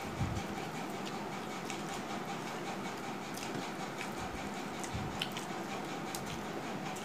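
Close eating sounds: chewing and mouth smacking, with fingers working rice on steel plates and scattered small clicks of a spoon against metal, over a steady background hiss.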